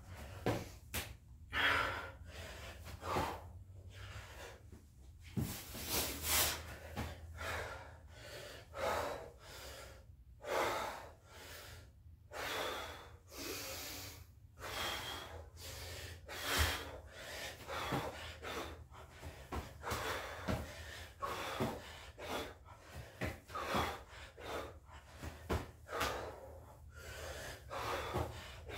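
A man breathing hard and gasping from the exertion of doing burpees: rapid, irregular breaths in and out, a second or so apart, with occasional dull thuds.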